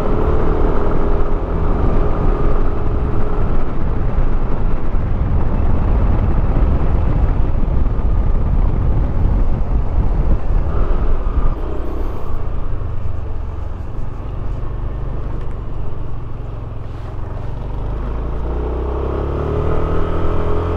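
Yamaha scooter riding at about 40 km/h: its engine running under a steady rumble of wind on the microphone. In the second half it slows, the wind eases a little, and the low engine note comes through more clearly.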